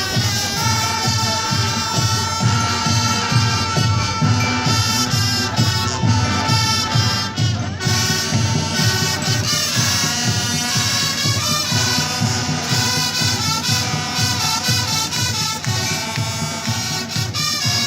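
Marching brass band playing, brass over a steady drum beat, with a long held chord in the first half.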